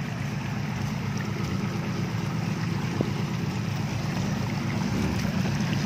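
Off-road jeep's engine running at low revs as it crawls over rocks in a muddy stream bed, growing slightly louder toward the end. A single sharp knock sounds about three seconds in.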